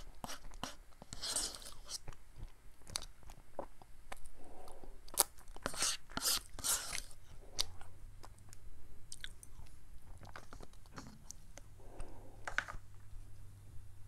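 Close-miked eating of ice cream with a plastic spoon: wet mouth sounds, lip smacks and chewing, in irregular clusters of small clicks.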